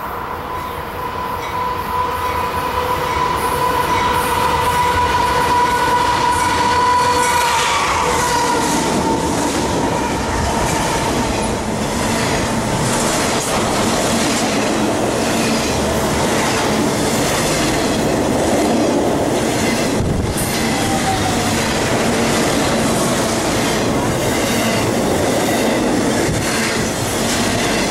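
Intermodal freight train passing close by. The approaching locomotives give a steady pitched tone that grows louder and drops in pitch as they go past about eight seconds in, then the cars roll by with wheels clattering over the rails.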